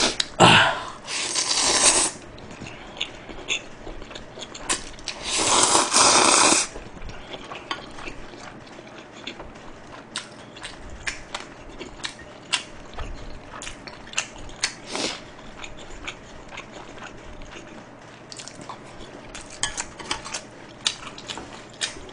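Close-up mukbang eating sounds: two loud slurps of chewy spicy bibim jjolmyeon noodles, one near the start and one around five to six seconds in, then chewing with scattered light clicks of chopsticks against the pan and dishes.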